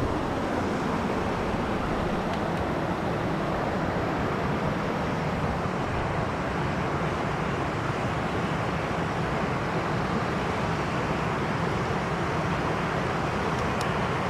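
A small mountain river rushing and flowing steadily, an even unbroken water noise.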